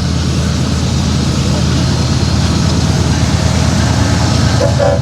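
Train running past after its horn has stopped: a steady low engine rumble with a hiss of wheels and air, and a brief pitched tone near the end.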